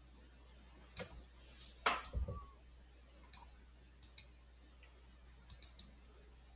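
Computer mouse clicking, a few single clicks spaced unevenly as spinner arrows are stepped, with one louder click and a low thump about two seconds in.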